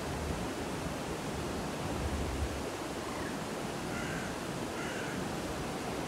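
Steady rush of flowing water. A bird calls faintly twice, about four and five seconds in.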